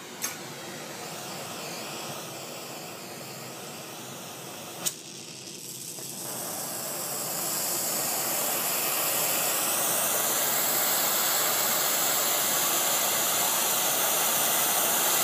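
Oxyacetylene torch being lit and turned up. Gas hisses from the tip, there is a sharp pop as it lights about five seconds in, and then the flame's hiss grows louder and steadies as the valves are opened toward a working flame for brazing.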